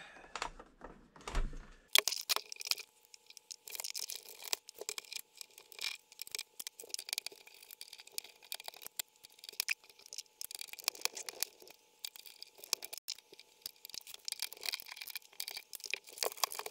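Irregular clicks, scrapes and knocks of hands unscrewing and prying apart the plastic case of a Canon V-20 MSX home computer.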